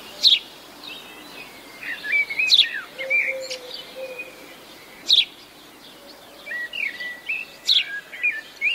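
Birdsong: whistled, warbling phrases with a sharp chirp repeated about every two and a half seconds.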